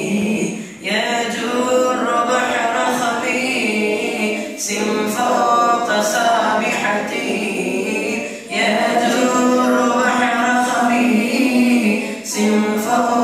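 A large group of boys' voices chanting Arabic in unison from their books. The chant moves in melodic phrases of about four seconds, each ending in a brief pause for breath.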